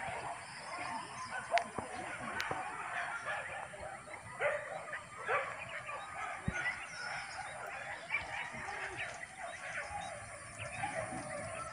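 A pack of hunting dogs barking and yelping, many voices overlapping throughout.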